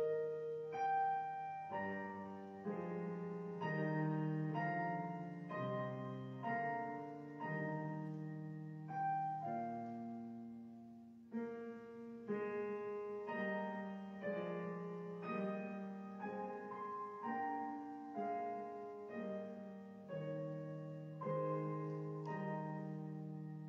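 Solo piano music: notes and chords struck about once a second, each ringing and fading away.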